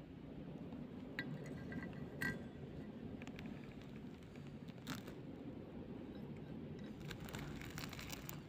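Faint clicks and crackles of a hand handling small pieces of crinkled clear plastic on a steel plate, over a steady low hum. There are sharper clicks about two and five seconds in, and a run of crackles near the end.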